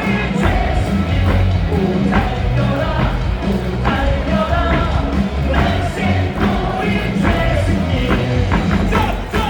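Player's cheer song blaring over a ballpark's loudspeakers with a heavy bass beat and rock feel, the stadium crowd singing along in unison.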